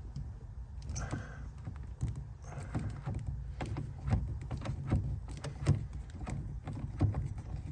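Irregular clicks and small knocks of hand tools and metal parts being worked at a car door's window crank, over a low steady rumble.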